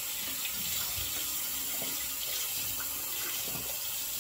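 Sink tap running steadily, water splashing into the basin, with a few faint knocks.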